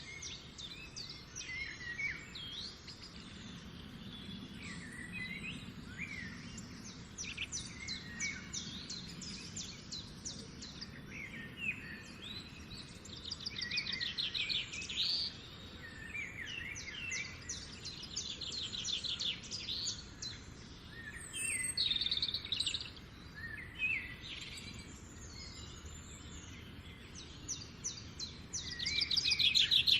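Several songbirds singing and calling at once, in rapid trills and short chirps over a steady outdoor background hiss. The trills are loudest near the end.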